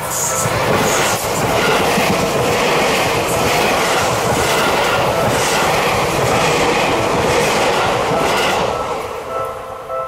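Seibu 001 series Laview limited-express electric train passing close by at speed over a level crossing: loud rail rumble and wheel noise with clatter over the rail joints about once a second. The noise fades near the end, and the level-crossing bell rings out again as the train clears.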